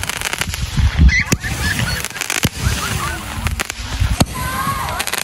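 Z121 ground firework fountain spraying stars, crackling continuously with several sharp pops. Short high cries that rise and fall come over it a few times, most clearly about a second in and after four seconds.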